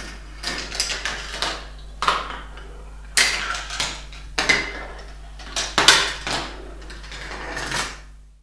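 Steel marbles running through a Gravitrax marble run: rolling along the plastic tracks and metal rails in a string of rattling runs, with several sharp clacks as they strike pieces of the course. A steady low hum lies underneath.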